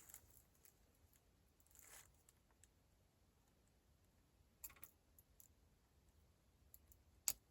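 Faint, sparse metallic clicks and scrapes of a Sparrows half-diamond lock pick working inside a lock, with a sharper click near the end.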